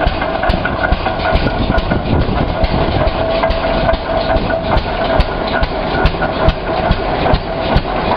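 Rumely Oil Pull Type F 15-30's single-cylinder engine running steadily at idle, with a regular beat of sharp exhaust chuffs over a steady mechanical hiss and a faint steady whine.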